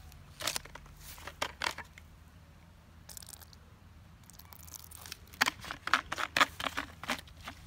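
Handling noise from rubber gloves and a plastic bottle: a run of sharp crinkling clicks. There are a few in the first two seconds, then a dense cluster from about five seconds in.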